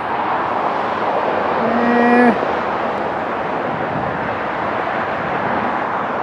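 Steady hiss of distant road traffic, with a short flat tone about two seconds in that stops abruptly.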